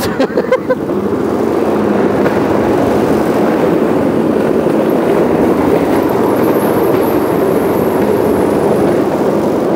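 Go-kart driving along a track, heard from onboard while towing a rider on a rope: a steady rumble of motor and tyres, with a faint high whine from about six seconds in for a few seconds.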